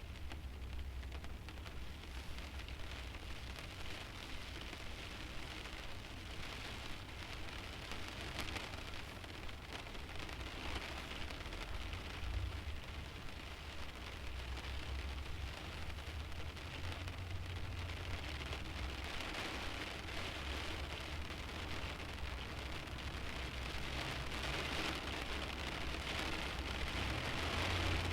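Rain pattering on the windshield of a stationary car, a steady dense spatter of drops with a low rumble underneath, growing gradually heavier toward the end.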